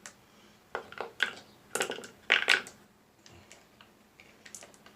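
Marbles clicking and knocking together in a series of sharp, irregular clicks, loudest about two and a half seconds in.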